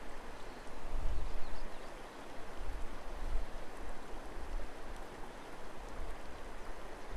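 Mountain river water running over stones, a steady rushing. Low rumbles come and go about a second in and again around three seconds.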